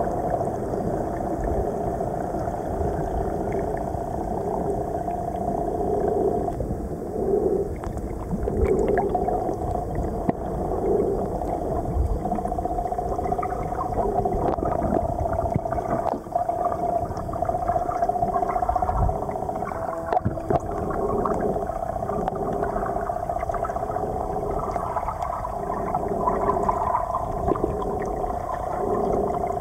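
Underwater sound picked up by a camera held below the surface while swimming: water moving around the camera with a low rumble, a steady hum, and a throbbing that pulses every second or two.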